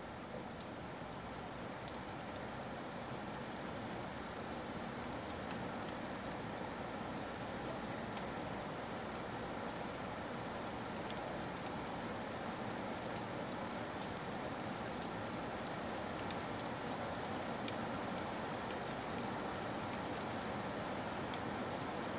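Steady rainfall, an even hiss with scattered individual drops ticking, slowly getting a little louder.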